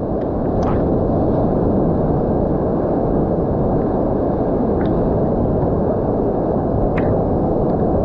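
Steady, loud rush of a waterfall, an even wash of falling water with a few faint clicks over it.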